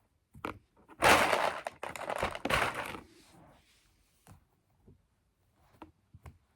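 Plastic drinking straws and straw connectors being handled and pushed together: a loud rustling clatter for about two seconds, then a few sharp clicks.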